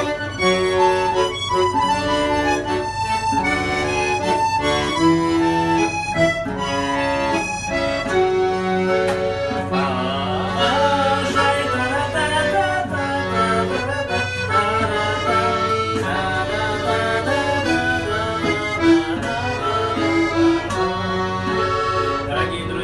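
Accordion playing a tune with chords, with a dombra strummed alongside.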